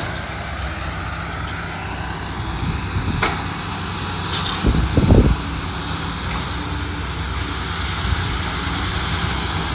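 Steady engine drone with a low hum and a short low thump about five seconds in.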